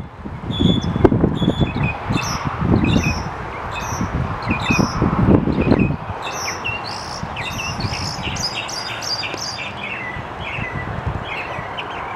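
Northern mockingbird singing: short phrases, each repeated several times in a row, with a fast run of repeated notes past the middle. Wind gusts on the microphone are loudest in the first half.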